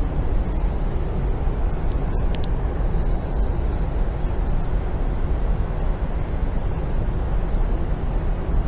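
Steady low rumbling room noise of a large hall, even throughout, with no engine running and no voices.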